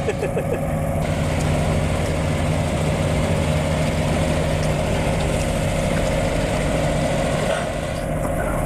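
Heavy truck engine idling steadily.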